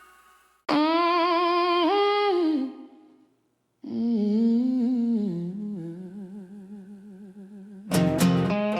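A woman humming two long, wavering notes with a short gap between them, the second lower and slowly fading. Near the end an electric guitar comes in with a sharp strum.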